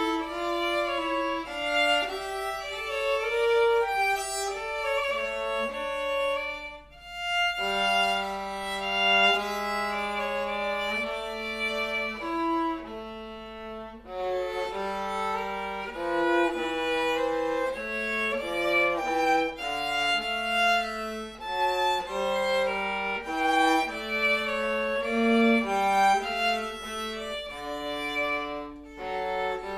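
Two violins playing a duet, a lower part and a higher part moving together note by note, with a short break about seven seconds in.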